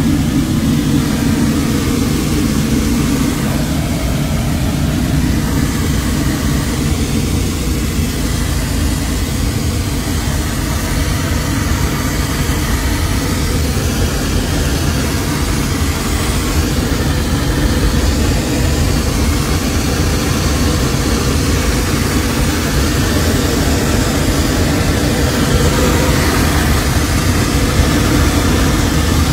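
Loud, steady, deep roar of engine and airflow inside the cabin of a Southwest Boeing 737 in flight, with the cabin depressurised and the oxygen masks down during an emergency descent.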